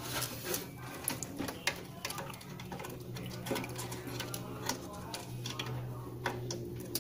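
Irregular clicks, taps and rattles of a hand handling cables and parts inside an open desktop PC case, over a steady low hum.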